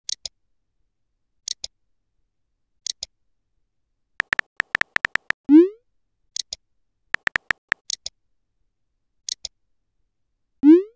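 Chat-app sound effects: two runs of quick keyboard tap ticks as messages are typed, the first followed about five and a half seconds in, and again near the end, by a short rising pop as a message is sent. Under them a paired tick repeats about every second and a half.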